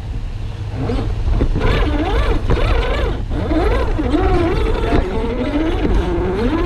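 Axial SCX10 III RC crawler's electric motor and geartrain whining, the pitch rising and falling over and over as the throttle is worked, over a steady low rumble.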